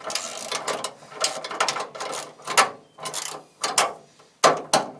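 Hand ratchet wrench clicking in short back-and-forth strokes, about two a second, on a hood-hinge bolt that spins without tightening: its threads are stripped.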